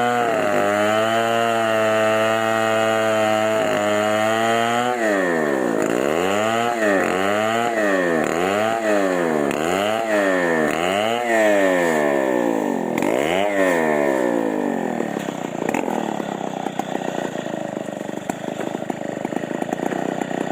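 Chainsaw engine running at a steady speed, then revved up and back down about once a second, eight or so times in a row. In the last few seconds it runs rougher and noisier, without a clear pitch.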